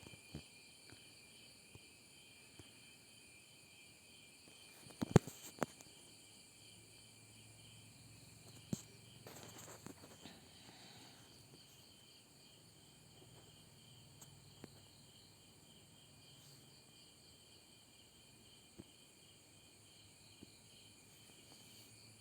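Faint, steady chirping of insects in the background, with a sharp knock about five seconds in and a smaller tap near nine seconds.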